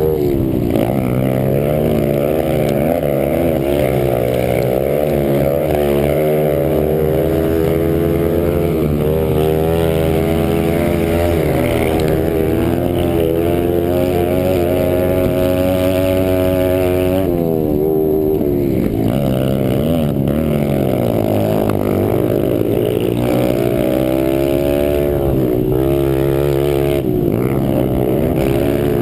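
Pit bike engine at race pace, revving up and down continuously with throttle and gear changes, its pitch rising and falling with each shift and corner; it briefly eases off about two thirds of the way through.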